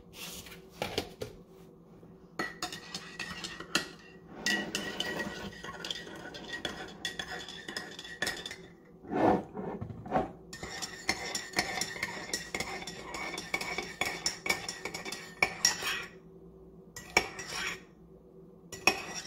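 A metal teaspoon stirring instant coffee in a mug, clinking quickly and repeatedly against the inside, with a louder scrape about nine seconds in and a short pause near the end.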